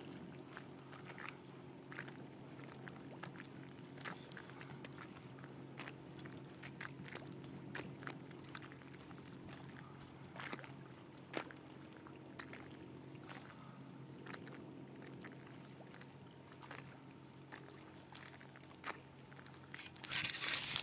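Quiet fishing from a boat: scattered small ticks and taps over a steady low hum. Near the end comes a brief louder burst of noise as a fish strikes and is hooked.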